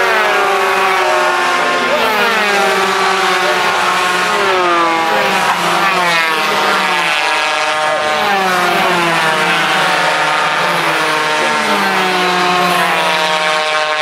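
Superkarts' high-revving 250cc two-stroke engines racing past, several engine notes overlapping. Their pitch falls and climbs again over and over as the karts brake, shift and accelerate through the corners.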